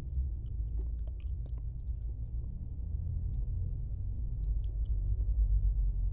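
A person chewing squid close to the microphone: scattered small wet mouth clicks over a steady low rumble.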